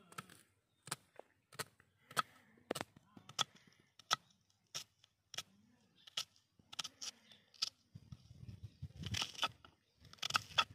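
Knife chopping onion on a wooden block: sharp, separate knocks of the blade hitting the wood, irregular at about one to two a second. Near the end the cutting gets busier, mixed with rustling.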